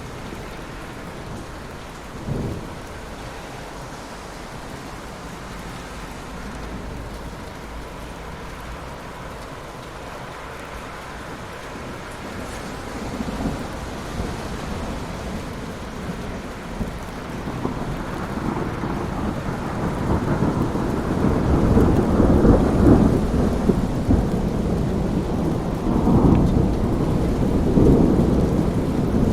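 Thunderstorm: steady rain with thunder. A short crack comes about two seconds in, and low thunder rumbles that grow louder through the second half.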